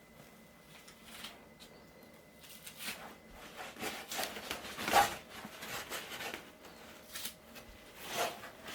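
A kitten scuffling and pattering about, with irregular rustles and taps that peak sharply about five seconds in.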